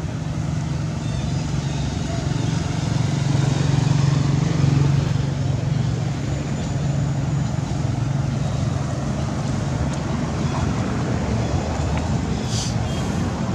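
Steady low engine hum over a wash of outdoor background noise. The hum fades out about ten seconds in.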